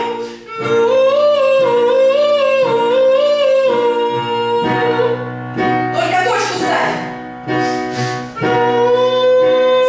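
A voice singing long, high held notes that rise and fall in small steps, over a steady instrumental accompaniment.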